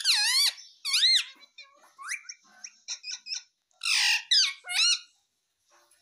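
Adult male Indian ringneck parakeet chattering in a string of short, high squeaks and chirps, with a louder, harsher squawk about four seconds in. The calls stop shortly before the end.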